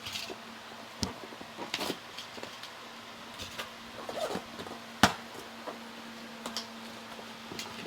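Hands unpacking and handling small die-cast toy cars and their packaging: scattered clicks and knocks with short rustling scrapes, the sharpest click about five seconds in. A steady low hum runs underneath.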